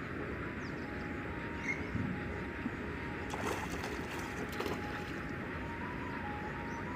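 Steady outdoor background noise, with a brief splashy rush about three and a half to five seconds in as a cast net is flung out and lands on the pond water.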